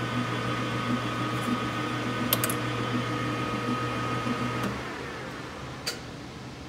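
Metal lathe running with its chuck spinning, a steady hum with a whine above it, then switched off about four and a half seconds in and spinning down. A couple of sharp clicks come about two seconds in and another near the end.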